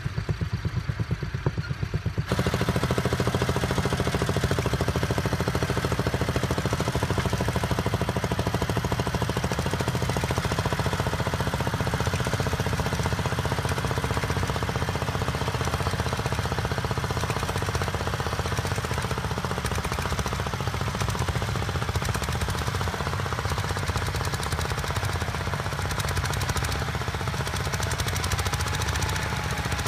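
Vintage tractor engine running with a rapid, even chugging, getting suddenly louder and denser about two seconds in.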